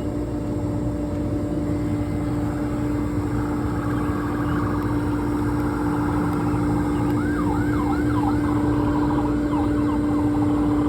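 An emergency-vehicle siren that switches to a fast yelp, quick rising-and-falling wails about three a second, over the second half, above a steady low machine hum.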